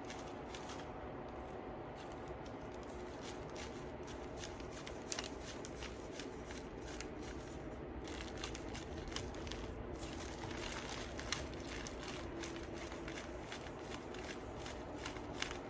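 Small beads ticking and clicking faintly and irregularly as they are scooped up and strung onto thread, over steady low background noise.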